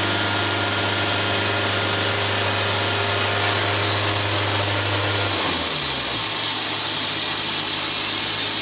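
Portable sawmill running: a steady low engine hum under a loud high hiss. A bit past halfway the hum slides down in pitch and settles lower while the hiss carries on.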